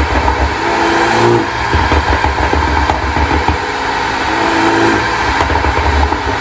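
BMW F30 320i's turbocharged four-cylinder engine revved in repeated blips through a tuned exhaust, crackling and popping between revs: the pop-and-bang map of an aftermarket ECU tune.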